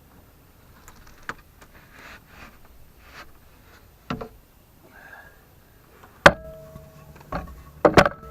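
Scattered knocks and clatter of lumber and tools being handled inside the van while a 2x6 base board is set in place. A sharp knock about six seconds in rings briefly, and a cluster of knocks follows near the end.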